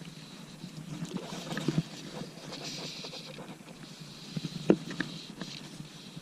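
Small scattered knocks and handling noise on a plastic fishing kayak, with one sharper knock about three-quarters of the way through, over a steady hiss.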